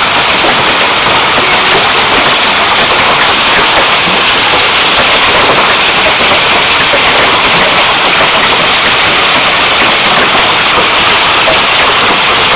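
Hail storm pelting down: a loud, steady, dense patter of countless small impacts that does not let up.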